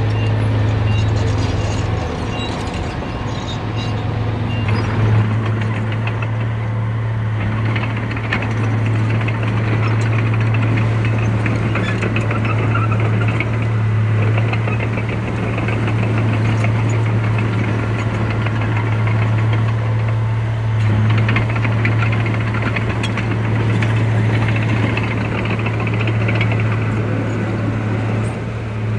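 Heavy diesel engine of a construction machine running steadily, with a busy clatter over it that grows stronger after the first several seconds.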